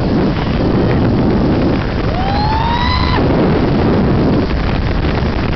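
Heavy wind buffeting the microphone from the airflow of a paraglider in flight. About two seconds in, one person's voice gives a single long cry that rises and then holds for about a second.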